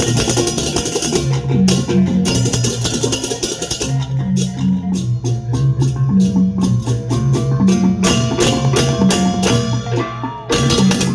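Balinese balaganjur gamelan playing: gongs sound a repeating line of low pitched notes under fast interlocking cymbal clashes and drumming. The ensemble dips briefly about ten seconds in, then comes back in with loud full strikes.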